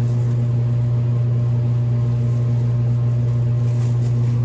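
A loud, steady low hum with several fainter, higher steady tones above it, unchanging throughout. A faint light rustle comes near the end.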